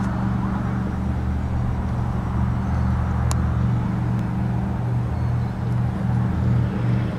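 An engine running with a steady low hum under a noisy hiss; about five seconds in, the hum starts to pulse about twice a second.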